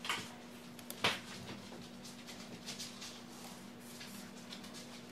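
Small paper planner stickers being laid and pressed onto a planner page with the fingertips: a light click just at the start and a louder one about a second in, then soft scratchy rustling of paper. A faint steady hum sits underneath.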